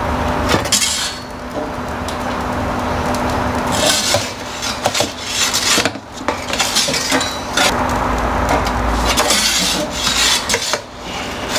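Metal pizza turning peel scraping and rubbing across the stone oven floor in several short strokes as the pizza is rotated, over the steady rush of the gas burner flame running on high.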